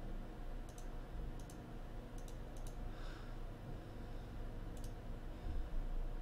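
A computer mouse clicking about eight times at irregular intervals, several clicks coming in quick pairs, while the feed is refreshed and checked for new questions. A low steady hum runs underneath, and there is a soft low bump shortly before the end.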